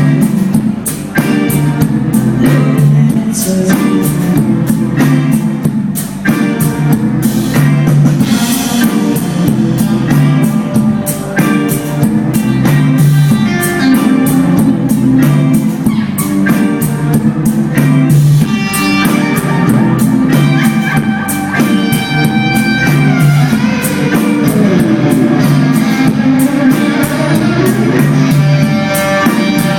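Live pop-rock band playing: guitars over a drum kit keeping a steady beat.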